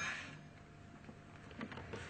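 Faint handling noises from pump parts being assembled on a workbench: a brief swish at the start, then a few light clicks near the end.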